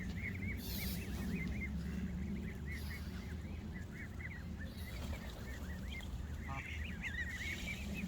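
A flock of Canada geese calling, many short honks overlapping in a continuous chatter over a steady low rumble.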